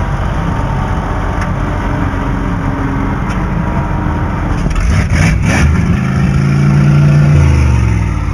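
Vehicle engine running close by with a low rumble, getting louder and pulling harder about three-quarters of the way in, then winding down in pitch near the end.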